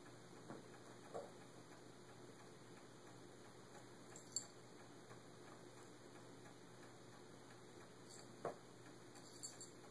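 Near silence broken by a handful of scattered faint clicks and taps from a cat pawing at a plastic ring-track ball toy.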